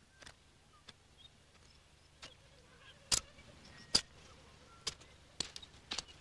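Digging in hard, dry earth: about ten irregular sharp knocks and scrapes as the ground is struck and loosened, the loudest two near the middle.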